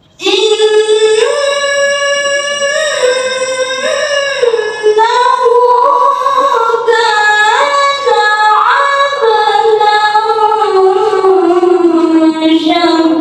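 A young woman's voice reciting the Quran in the melodic tilawah style into a microphone. It starts abruptly just after the start, with long held, ornamented notes that step and slide between pitches.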